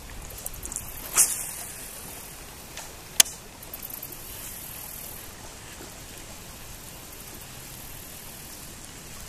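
Steady outdoor hiss of wind on open water, with a short swishing burst about a second in and a sharp click about three seconds in.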